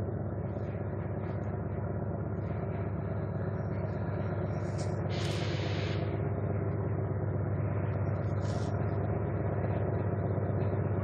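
Engine of an Lxd2 narrow-gauge diesel locomotive running steadily as the train comes slowly closer, with a short hiss about five seconds in.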